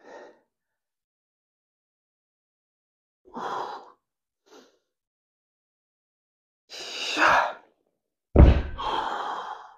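Several heavy sighing exhales separated by silence, with a dull thud a little past eight seconds in followed by a longer breath.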